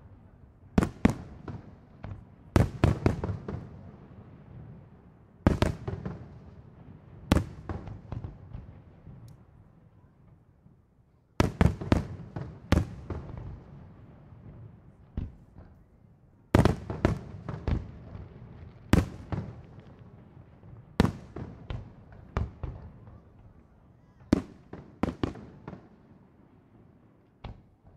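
Aerial fireworks shells bursting: sharp bangs in irregular clusters, each followed by a rolling echo. There is a lull of a few seconds in the middle, and the bangs thin out near the end.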